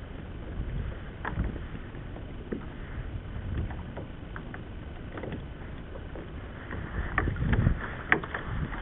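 Small waves slapping and sloshing against a kayak's hull in uneven surges, with wind rumbling on the microphone. A few short sharp knocks come through, the loudest near the end.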